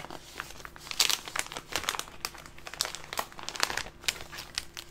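Planner sticker sheets crinkling and rustling as they are leafed through by hand, in irregular clusters of crackles, loudest about a second in.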